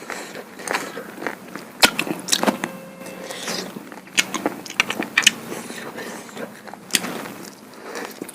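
A person chewing and smacking their lips while eating duck meat bhuna with rice-flour pitha: irregular wet clicks and smacks, a few of them sharper and louder.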